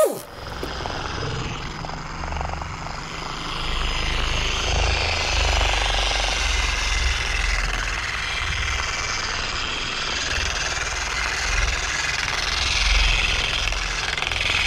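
Handheld electric polisher running with a wool buffing pad, scrubbing compound into a fibreglass boat's oxidised gelcoat: a steady motor-and-pad noise over a low rumble.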